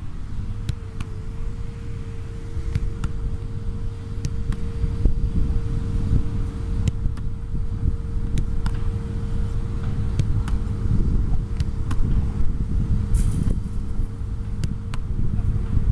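Low steady outdoor rumble with a faint steady hum, broken by scattered sharp knocks of a football being kicked, caught and thrown back.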